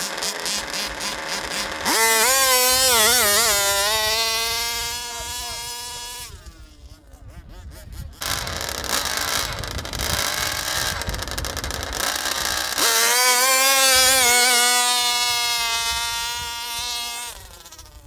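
Small two-stroke engine of a gasoline-powered large-scale RC buggy revving hard on a full-throttle dune climb, its high buzz wobbling in pitch at first and then holding high. It happens twice, once about two seconds in, cutting off abruptly after about four seconds, and again near the middle, fading away after about four seconds. Before the first run an engine idles with a rapid ticking.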